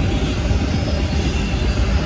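Train rumbling past: a loud, steady low rumble with a hiss over it, and no horn sounding.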